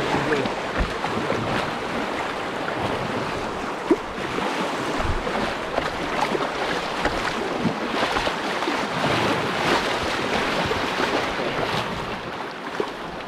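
Fast, high river water rushing and splashing around an open canoe as it runs through choppy waves, with wind buffeting the microphone.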